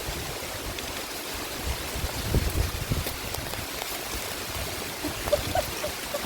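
Heavy rain falling in a steady hiss, with a low thump about two and a half seconds in.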